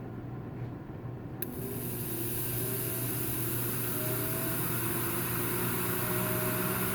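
Airthereal ozone generator restarting after its ozone level is raised: a click about a second and a half in, then its fan's air rush builds over a couple of seconds and runs steadily. The unit shuts off and pauses after every setting change, which the owner is unsure is normal.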